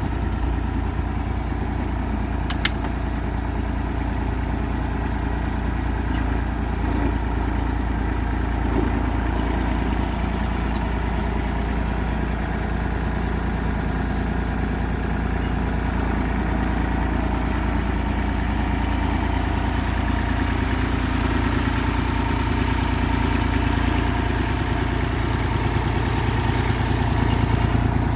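An engine running steadily, getting slightly louder over the last several seconds, with a couple of faint clicks.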